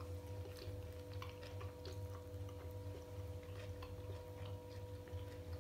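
People chewing mouthfuls of sushi rolls close to the microphone: soft, irregular wet clicks and smacks, over a steady low hum.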